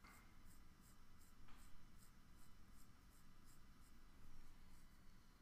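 Faint scratching of a graphite drawing pencil on paper. It goes in quick, even back-and-forth hatching strokes, about three a second, as layers of shading are laid onto one side of a drawn box.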